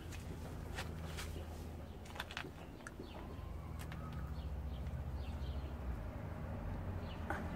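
Birds chirping in short, scattered calls over a steady low hum, with a few sharp clicks.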